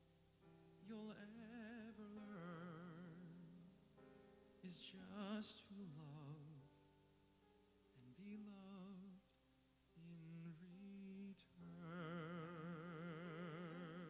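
A man singing a slow ballad with wide vibrato over grand piano accompaniment, in several short phrases and then a long held note near the end.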